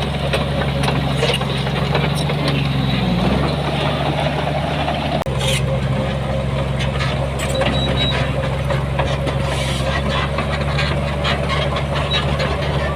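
Diesel engine of heavy earthmoving machinery running steadily under load, its pitch dipping briefly and picking back up about three seconds in, with scattered clanks and knocks over it.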